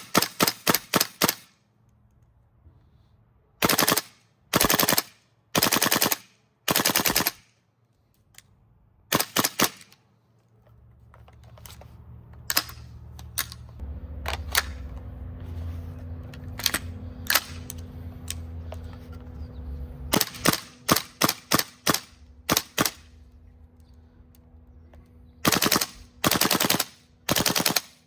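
GHK HK416A5 gas blowback airsoft rifle firing in short full-auto bursts, each a rapid string of sharp cracks from the cycling bolt, with pauses between bursts. Several single shots come in the middle, then longer bursts near the end.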